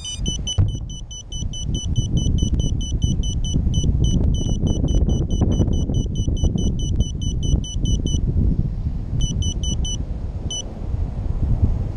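Rapid electronic beeping from a small buzzer on an FPV racing quad, about four beeps a second, stopping about eight seconds in and then coming back twice in short runs. Steady low wind rumble on the quad's camera microphone underneath, the loudest sound throughout.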